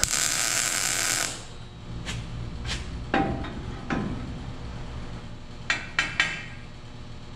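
Shop work on metal: a loud burst of hissing noise lasting about a second, then scattered taps and clinks of tools on metal, two of them ringing briefly, and three quick clicks near the end.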